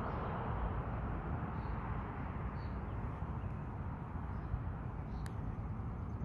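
Steady outdoor background noise of road traffic, with a low rumble of wind on the microphone.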